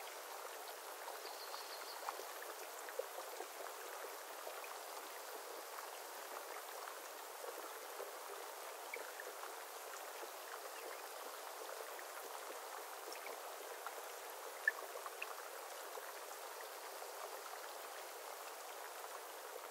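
Rain falling on calm water: a faint, steady hiss speckled with the small ticks of individual drops.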